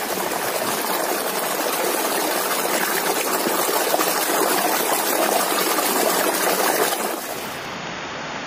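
Steady hiss of a stream's running water, which softens a little before the end.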